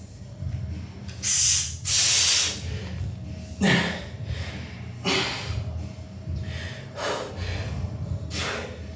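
A man breathing hard and loudly, with about six forceful, airy exhales and inhales spaced a second or two apart: he is out of breath after a hard set of shoulder exercises.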